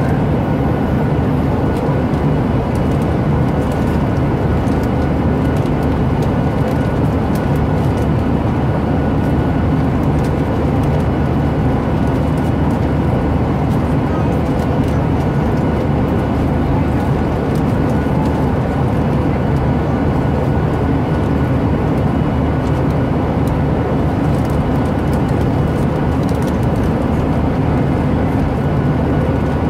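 Steady cabin noise of a passenger jet in flight: an even, unchanging drone with a faint steady whine.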